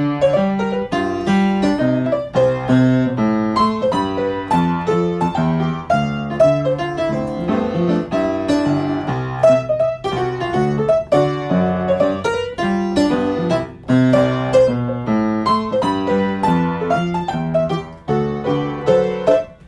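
Piano music, a steady run of notes and chords with no voice over it.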